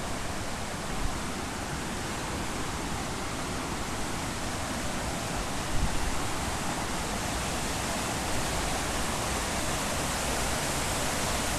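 Steady rushing of a small jungle waterfall, with a brief soft bump about six seconds in.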